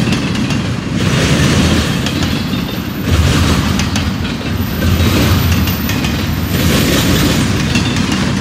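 Double-stack intermodal train's well cars rolling past, steel wheels clicking and clattering over the rail joints above a steady rumble that swells and eases as the cars go by.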